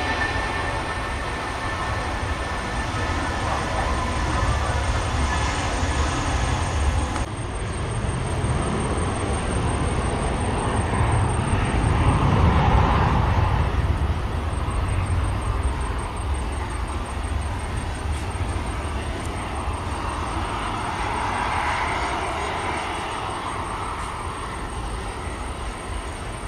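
Airbus A320 jet engines at takeoff thrust during the takeoff roll and climb-out: a steady rushing noise with a deep rumble, loudest about halfway through and slowly fading toward the end.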